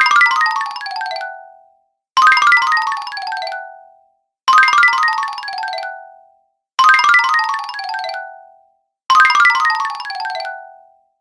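Cartoon 'fail' sound effect: a quick run of notes stepping down in pitch, each repeat dying away within about a second and a half. It plays five times over, with a short silence between each.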